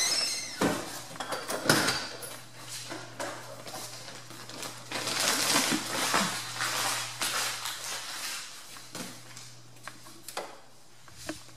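Scattered knocks and clatter of household objects being handled, the sharpest about two seconds in, with a stretch of rustling in the middle, over a low steady hum.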